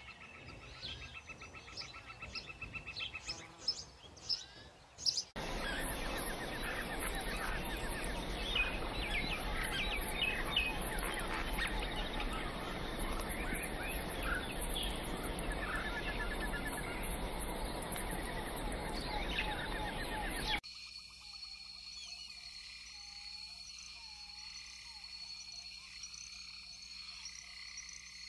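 Forest ambience of birds calling and chirping over a steady background hiss. About five seconds in it turns denser and louder with many overlapping calls, and about twenty-one seconds in it drops to a quieter bed with a thin, steady, high whine.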